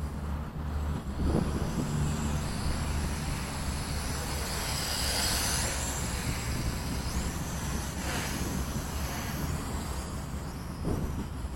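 Gusty wind buffeting the microphone in a steady low rumble. A quadcopter's motors and propellers add a high whine that swells for a second or two about five seconds in, as the drone flies low past.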